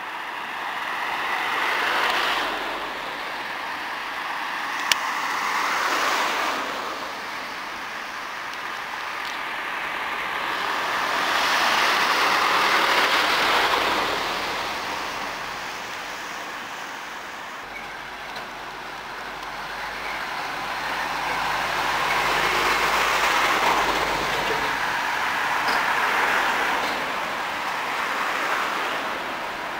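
Passing vehicles or trains, heard as several long swells of noise that each rise and fade over a few seconds. A low hum runs under the later swells, and there is a single sharp click about five seconds in.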